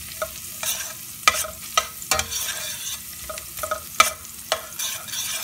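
Pounded garlic and black pepper sizzling in oil in a stainless steel pot while a metal spoon stirs them. The spoon clinks and scrapes against the pot a handful of times over the steady sizzle.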